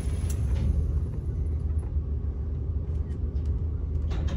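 Steady low rumble of a vehicle's engine and tyres heard from inside the cab as it creeps onto a ferry's vehicle deck, with a few faint clicks near the end.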